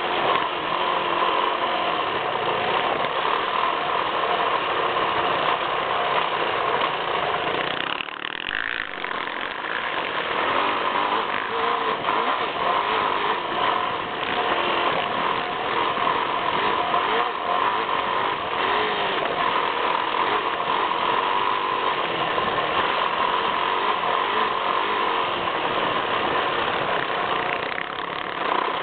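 Yamaha YZ450F dirt bike's single-cylinder four-stroke engine running hard at changing revs while riding, heard close from the front fender, mixed with wind rush. The level briefly drops about eight seconds in.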